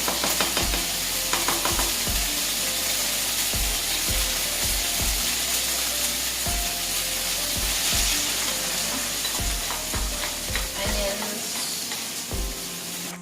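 Chopped onions and chilli frying in hot ghee in a pan, with a steady sizzle. A utensil knocks and scrapes irregularly against the pan as they are stirred.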